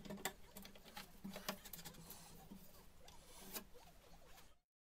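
Faint clicks and light rubbing of a plastic VMC ventilation vent being pushed and seated into a round hole in a wooden cabinet panel, a few scattered clicks over otherwise near-silent room tone.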